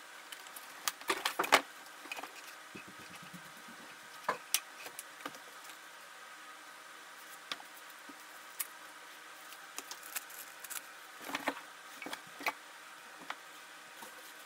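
Unboxing noises: cardboard packaging and scooter parts being handled and pulled from the box, with scattered rustles, scrapes and knocks that are loudest in a burst about a second in and come again in smaller clusters later. A faint steady hum runs underneath.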